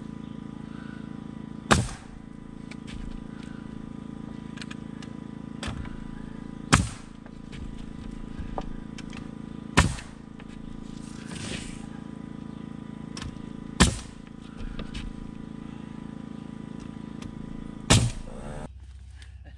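Pneumatic nailer firing nails into a timber wall frame: five loud, sharp shots a few seconds apart, with lighter knocks and clicks between, over a steady motor hum.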